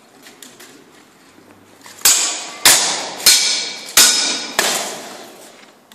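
Steel swords striking in full-contact armoured sword fighting: five sharp, ringing metal clashes about two-thirds of a second apart, starting about two seconds in, each ringing out before the next.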